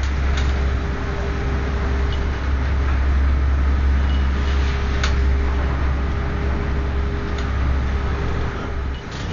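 Steady low drone of an inland cargo ship's engine heard from inside the wheelhouse, with a constant hiss of wind and sea and a couple of brief knocks as the ship ploughs through rough waves.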